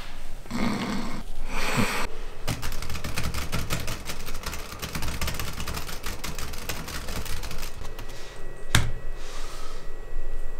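Fast typing on a laptop keyboard: a dense clatter of key clicks for several seconds, ending in one sharp, harder click. Two short rushing noises come before the typing begins.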